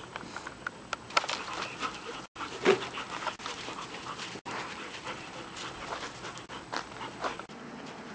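Two giant schnauzer puppies panting and scuffling over a Jolly ball on gravel, with scattered clicks and knocks of paws, teeth and ball; the loudest knock comes about two and a half seconds in.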